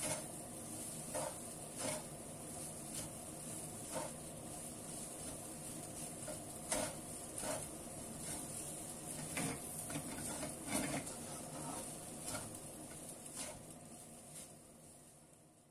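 Shredded cabbage stir-frying in a stainless-steel pan: a steady sizzle with a spatula scraping and knocking against the pan about once a second, fading out near the end.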